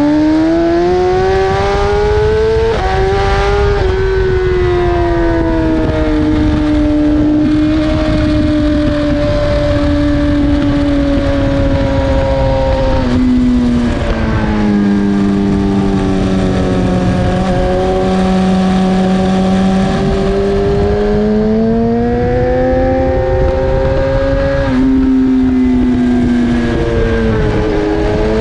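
BMW S1000RR inline-four sport bike engine running hard on track, heard with wind noise. The engine note climbs at the start, then sags slowly, drops sharply about halfway, and rises and falls again near the end as the rider works the throttle and gears.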